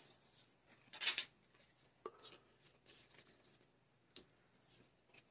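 Magic: The Gathering cards being handled on a playmat: a few short, faint rustles and taps, the loudest about a second in and smaller ones around two, three and four seconds in.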